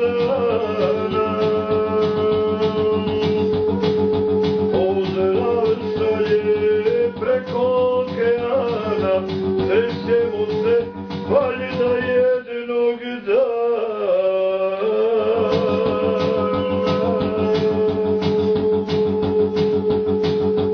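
Music: a voice singing a wavering melody over a plucked string accompaniment with a steady beat. The bass drops out briefly a little past halfway.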